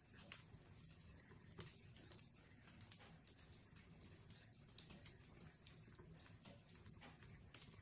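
Wood burning in a fireplace, crackling faintly with irregular sharp pops and snaps over a low, steady murmur of flame.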